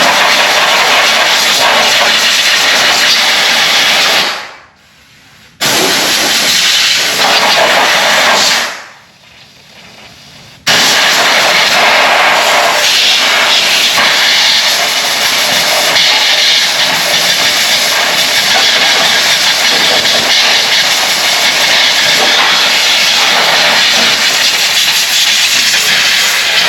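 Loud pressurised spray hissing in three long blasts: the first about four seconds, the second about three, the last running on without a break. It is the clean-up of spilled oil from the ATV's oil-filter area and skid plate.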